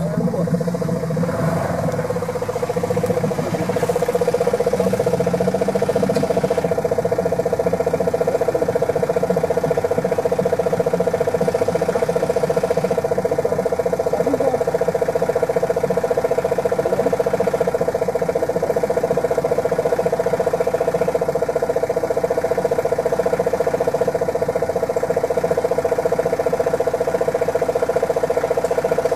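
Jeep Wrangler engine running steadily with an even drone, getting a little louder about three seconds in and then holding level.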